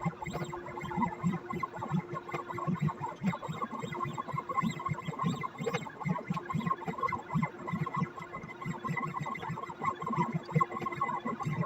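CNC pen plotter's stepper motors running as it draws: a steady hum of several tones with irregular low pulses as the axes move.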